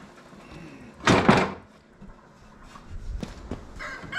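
Steel mower deck of a John Deere Z425 zero-turn giving one loud clunk about a second in as it is shifted loose from the mower frame, then two lighter knocks a little after three seconds.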